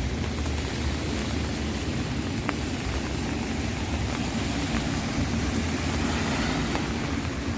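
Steady rain pattering on an umbrella, with a vehicle's low rumble underneath that grows louder in the second half.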